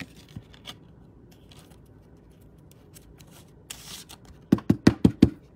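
Hands handling a stack of trading cards. There are light clicks and a short slide, then five quick knocks of the stack against the table near the end.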